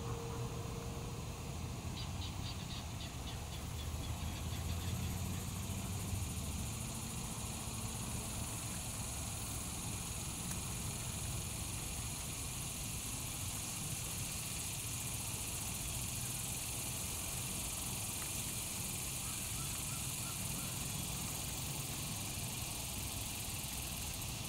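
Steady outdoor background: a low rumble and a high hiss, with a short rapid chirping trill about two seconds in.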